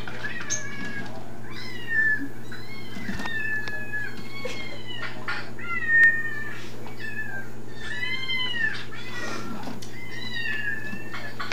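Many kittens meowing from a recording played through an iPod's small speaker: high, arching mews, one after another and often overlapping, with no pause. A steady low hum lies underneath.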